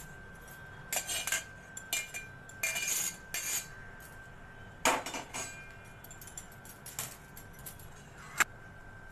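Stainless steel pot and pot-gripper tongs clinking and clanking against a stainless steel mesh strainer in scattered bursts as boiled sweet corn kernels are tipped in to drain. The loudest clank comes about five seconds in, and there is one sharp clink near the end.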